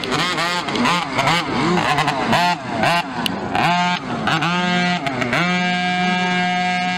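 Engines of small youth motocross bikes racing, revving up and down with the throttle and gear changes, several bikes overlapping. About five seconds in, one engine settles into a steady, held note.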